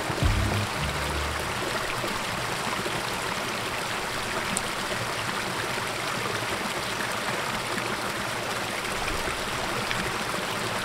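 A small mountain stream running steadily over rocks, with a constant splashing trickle.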